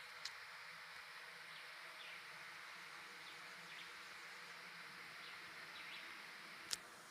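Faint steady insect buzzing with a few soft chirps, and a sharp click about a second before the end.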